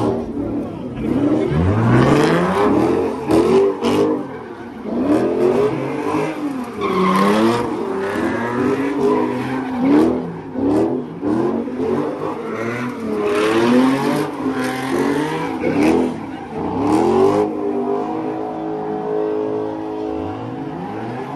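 A car's engine revving up and down again and again while its tyres spin and squeal in a burnout, pouring out tyre smoke. Near the end the revving stops and the engine holds a steady note.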